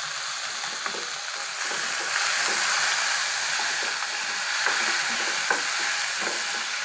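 Peanuts and soaked urad dal sizzling in hot oil in a metal pan, stirred with a wooden spatula: a steady frying hiss with scattered light taps and scrapes of the spatula against the pan.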